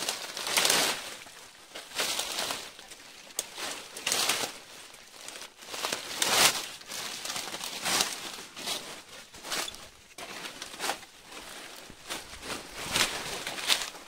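Broad leaves and undergrowth rustling and crinkling in irregular bursts, about every one to two seconds, as someone pushes through dense jungle vegetation on foot.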